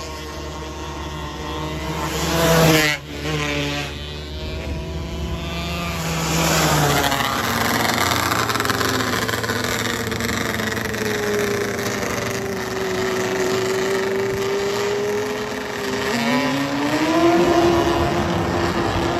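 270-class micro sprint cars' single-cylinder motorcycle engines running at high revs. One car passes close about three seconds in, its note dropping sharply as it goes by. Engine pitch climbs again near the end as a car accelerates.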